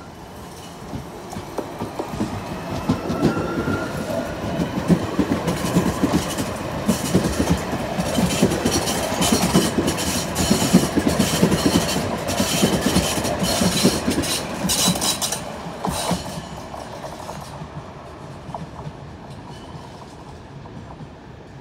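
Alstom Citadis Dualis electric tram-train pulling away and passing close by. Its motor whine rises as it speeds up, the wheels clack over the rail joints as the cars go past, and the sound then fades as it moves off.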